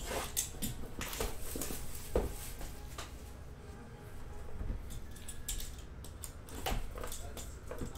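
Trading card boxes and packs being handled on a table: scattered light clicks, taps and rustles of cardboard and plastic wrapping.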